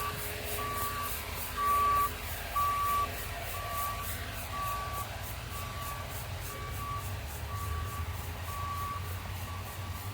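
A vehicle's reversing alarm beeping steadily, about one and a half beeps a second, loudest about two seconds in, over a low engine rumble.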